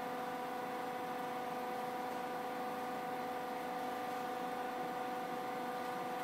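Hydraulic power pack running steadily, its pump giving a constant hum and whine as it drives a concrete shear's jaws slowly open.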